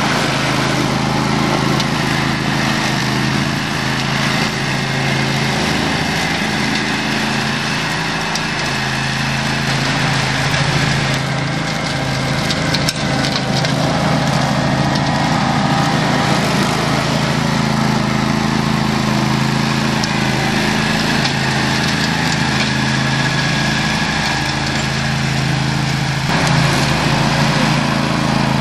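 Grillo Climber 9.16 ride-on mower running steadily, engine and cutting deck under load as it mows short grass.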